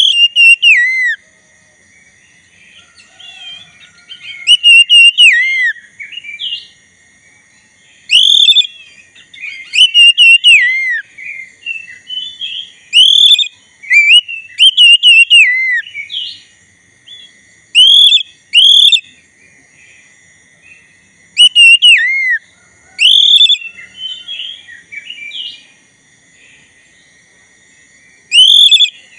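Oriental magpie-robin of the black-bellied form (kacer dada hitam) in full song: loud phrases of clear whistled notes slurring down in pitch, repeated in bursts every second or two with short pauses between. It falls quiet near the end.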